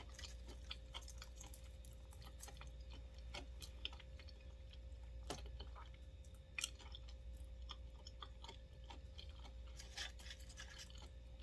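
A person chewing crispy fried wonton chips: faint, irregular crunching and mouth clicks, with a few louder crunches.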